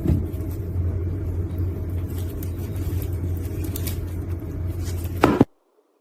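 A steady low rumble, with a loud knock near the end just before it cuts off abruptly to near silence.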